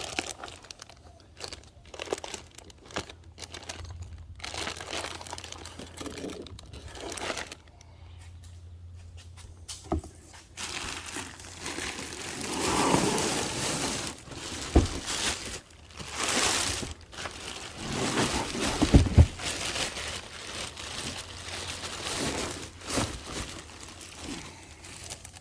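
Packaging being crinkled, crumpled and torn as a boxed intake kit is unpacked by hand, in irregular rustling bursts with a few sharp knocks.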